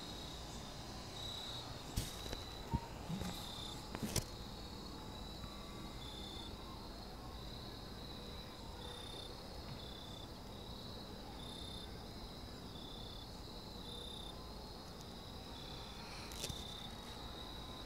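Crickets chirping in a steady, repeating high-pitched pattern. A few sharp clicks sound in the first few seconds and once more near the end.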